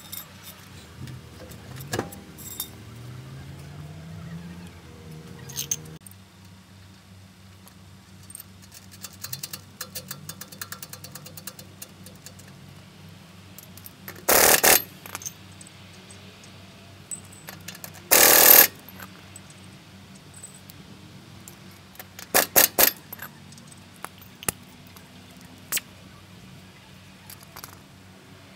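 Pneumatic impact wrench running lug nuts on a truck wheel in short bursts: two runs of about half a second, then a quick string of short blips. Light metallic clinks of nuts and tools come between the bursts.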